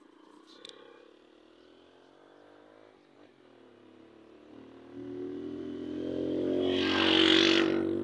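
A motor vehicle's engine passing on the road: faint at first, it grows louder from about five seconds in and is loudest near the end as it goes by, then begins to fade.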